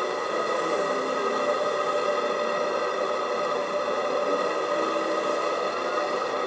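Propane torch burning steadily inside the end of a copper bending pipe: a continuous rushing noise with several steady tones ringing over it.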